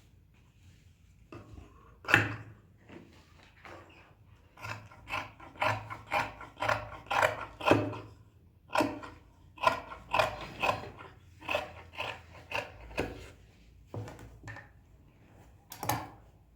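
Repeated short scraping strokes, about two a second for several seconds, with a few scattered single strokes before and after.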